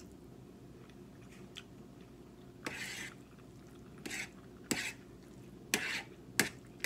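A metal fork scraping and clicking against a plate as it twirls angel hair pasta: one short scrape about three seconds in, then several sharp clicks.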